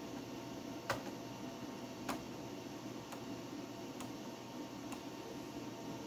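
Steady hum of a running desktop PC, with five light clicks roughly a second apart.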